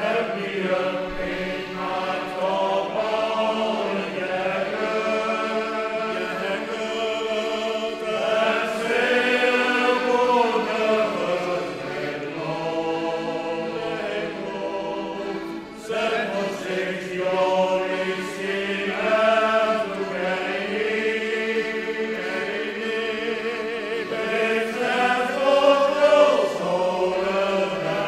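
Men's shanty choir singing a sea shanty in harmony, in long sung phrases with a short break about 16 seconds in.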